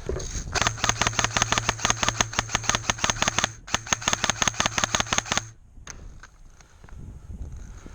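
Airsoft rifle firing on full auto in two bursts, the first about three seconds long and the second about two seconds after a brief break. It makes rapid even shots, about ten a second, over the steady whine of the gun's motor, then stops.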